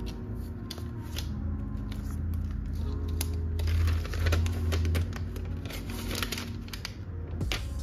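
Protective paper wrap being peeled and pulled off a new iPad Air, rustling, crinkling and tearing in spells, loudest about halfway through. Soft background music with held low notes plays underneath.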